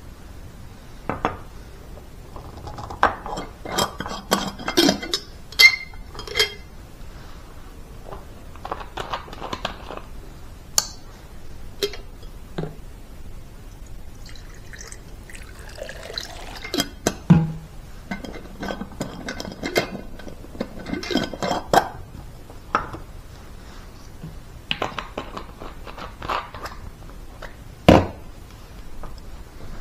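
Water poured from a plastic bottle into a glass mason-jar mug, amid repeated clinks and knocks of glass, bottle and lid as the jar is handled. A sharp knock comes near the end as the lid with its straw goes on the jar.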